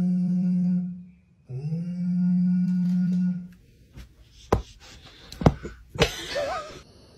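A person hums two long, low notes, each sliding up at the start and then held for about two seconds. After that come a few sharp knocks and, about six seconds in, a short cry with a wavering pitch.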